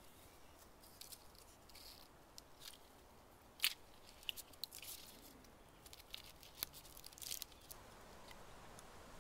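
Paracord being wrapped around a rough-barked tree trunk and pulled into a clove hitch: faint, scattered crackles and scrapes of cord and fingers against the bark. The sharpest click comes about three and a half seconds in.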